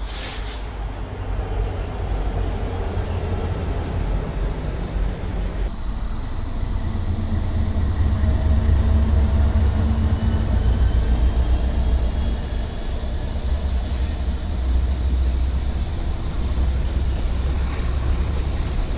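Diesel freight locomotives and their train passing close by: a steady low rumble of engines and rolling wheels, cutting abruptly to a second passing train about six seconds in, which is loudest a few seconds later as its lead locomotives go by.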